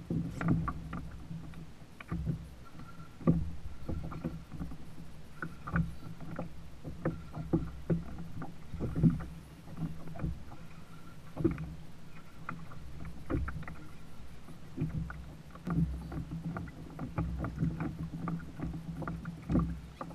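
Irregular knocks and clicks of fishing gear on a plastic sit-on-top kayak, with water moving against the hull, while a fish is reeled in on a conventional rod and reel.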